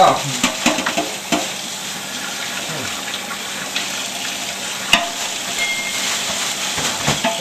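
Kitchen tap running steadily into the sink while dishes are washed, with a sharp clink of a dish about five seconds in.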